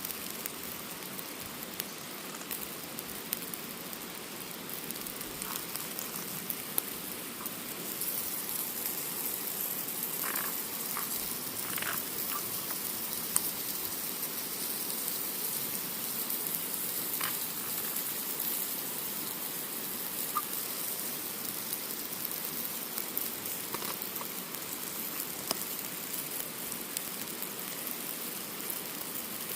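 Rainbow trout fillets sizzling on a charcoal grill with butter on them: a steady hiss with scattered small crackles and pops.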